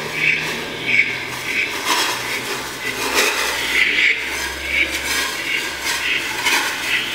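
Liquid nitrogen hissing and sputtering as it boils off at the dewar's outlet, with irregular metallic clinks and rattles.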